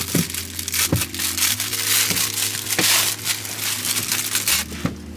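Clear plastic packaging bag crinkling and crackling as it is pulled open and handled, with a few sharp crackles, over soft background music.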